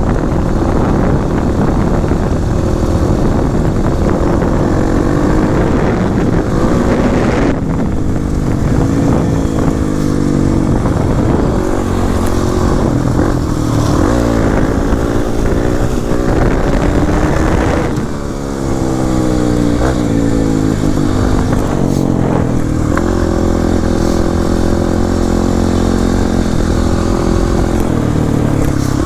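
Kawasaki KLX300 dirt bike's single-cylinder four-stroke engine running under way, its pitch climbing and falling again and again as the rider works the throttle, with a brief let-off about eighteen seconds in.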